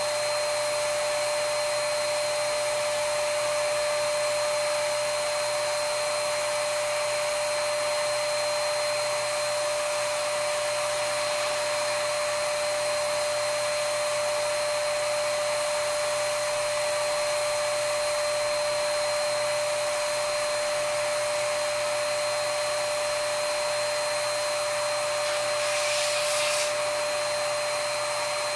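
Earlex 5500 HVLP spray station's turbine running steadily with a constant whine while paint is sprayed through its gun, with a brief louder hiss near the end.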